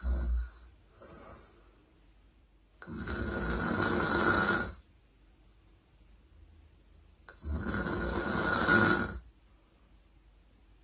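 A woman snoring: two long snores, each nearly two seconds, about four and a half seconds apart, with a short breath noise at the very start.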